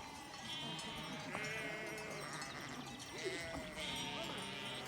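A flock of sheep bleating, many calls overlapping, some low and some high-pitched.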